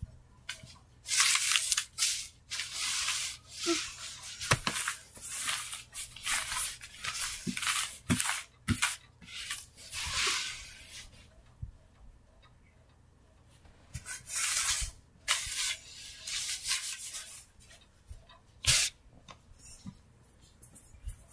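Paper bills and trading cards rustling in repeated short bursts as they are scooped up and shuffled by hand on a carpet, with a quieter pause of a few seconds in the middle and a few soft knocks.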